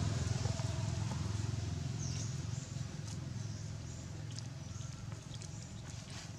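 A low motor-vehicle engine hum, fading over the few seconds, under light rustling and clicking in dry leaf litter as baby macaques scramble about. A brief high squeak comes about two seconds in.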